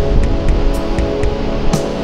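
Instrumental background music with a steady beat and strummed guitar-like tones, produced on a MIDI synthesizer.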